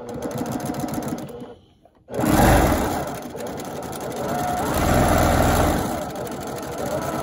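Sewing machine stitching a quarter-inch seam through cotton quilt pieces with a fast, even rattle. It pauses briefly about a second and a half in, then starts again and runs steadily.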